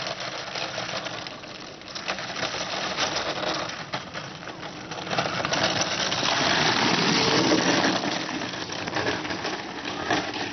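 Homemade kart rattling down a rough road toward the listener and passing close by. Its clatter builds, is loudest about six to eight seconds in as it goes past, then eases.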